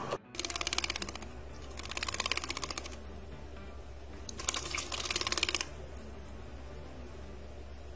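A Java sparrow bathing in a small plastic bird bath, beating its wings in the water: three bouts of rapid splashing, each about a second long.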